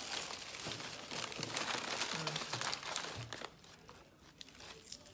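Food wrapping crinkling and rustling, with small crackles and crunches, dying down about three and a half seconds in.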